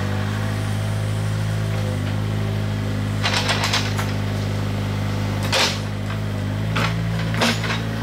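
Mini excavator's diesel engine running steadily, with a quick rattle of clicks about three seconds in and then three sharp clanks as the bucket works the stony track bed.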